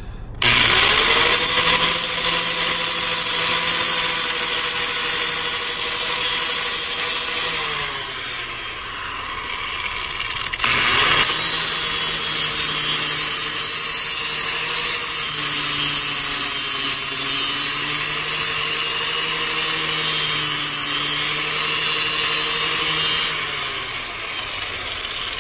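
Angle grinder with a flap disc grinding down the edges of a steel brake pedal: a loud grinding hiss over the motor's whine. The grinder spins up about half a second in, eases off and slows about a third of the way through before spinning back up, and slows again near the end.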